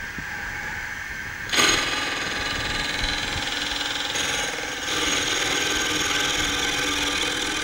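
Mini milling machine with a half-inch end mill cutting into a cast iron casting: a grinding machining noise comes in sharply about a second and a half in as the cutter touches off on the surface, and gets louder about five seconds in.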